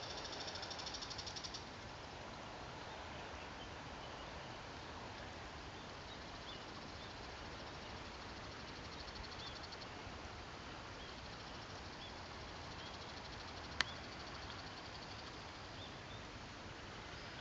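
Steady outdoor background noise with a high, rapidly pulsing buzz, loudest in the first second and a half and returning faintly later, and scattered faint short chirps of a small animal. One sharp click comes about fourteen seconds in.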